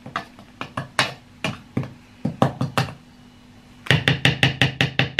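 A metal spoon scraping and clicking against the plastic bowl of a food chopper holding spice paste. Near the end a fast, even clatter of about five knocks a second starts over a low hum.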